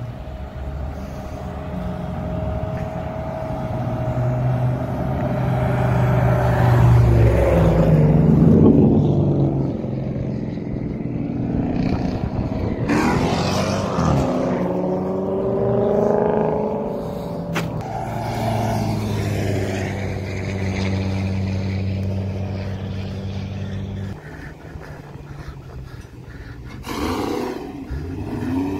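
V8 muscle cars' exhausts rumbling as they roll past, the engine notes swelling and gliding in pitch as each car goes by, loudest about eight seconds in.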